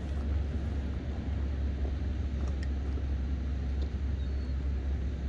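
Steady low outdoor rumble with no sharp events, with a faint short high chirp near the end.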